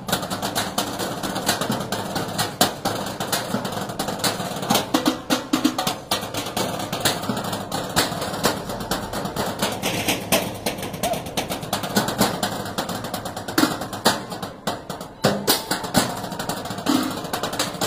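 Percussion troupe drumming with sticks on galvanized metal trash cans and lids: a fast, dense rhythm of sharp metallic strikes.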